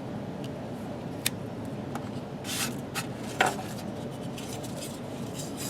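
Spyderco Tenacious folding knife cutting through cordage: a short slicing swish about two and a half seconds in, with a couple of light clicks from handling, over a faint steady hiss.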